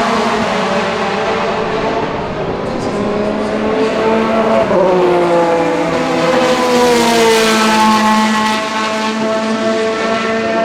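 Ferrari F430 GT2 race car's flat-plane V8 running hard at racing speed. The engine note drops about halfway through, then climbs again and holds high.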